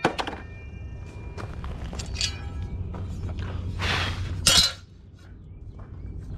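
Stone coping pieces clinking and scraping as they are handled, in a few short separate knocks and scrapes, the loudest about four and a half seconds in, over a steady low hum.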